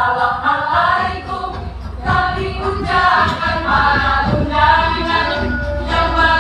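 A group of young voices singing a melody together, beginning suddenly, over a steady low hum.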